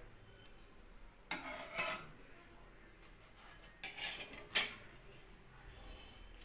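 Steel spatula scraping and clinking against a cast-iron dosa tawa and a steel plate as cooked rice-flour rotis are lifted off and stacked: a short scrape about a second and a half in, then a couple of sharper clinks around four to four and a half seconds.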